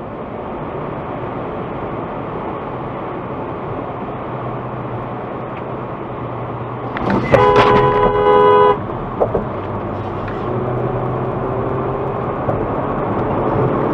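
Steady road and engine noise inside a car driving on a highway, with a car horn sounding once for about a second and a half about halfway through.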